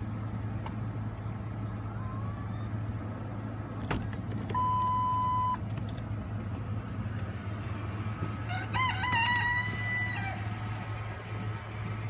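A rooster crows once about nine seconds in, a wavering call lasting over a second. Before it comes a steady one-second electronic beep, over a constant low hum.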